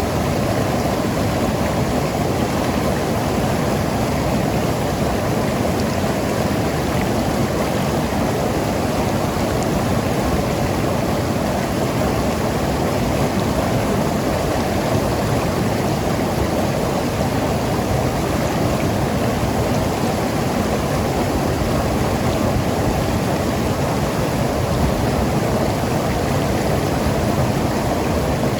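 Mountain river rushing and gurgling over rocks: a steady, full rush of water.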